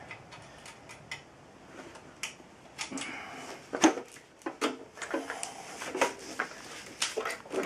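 Scattered light clicks, taps and rustling of hands working metal parts and an Allen key while assembling a benchtop drill press, with a sharper knock about four seconds in.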